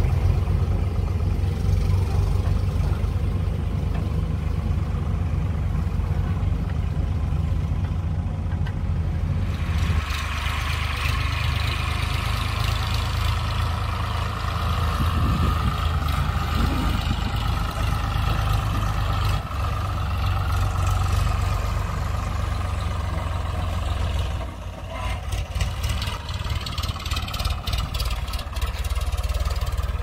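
Diesel farm tractor engines running steadily under load, towing trolleys piled high with mud. The sound changes abruptly about a third of the way in and again near the end.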